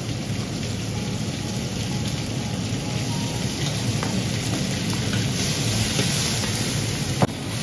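Minced pork sizzling steadily in hot flaxseed oil in a large iron wok, with a couple of light clicks from the spatula and chopsticks.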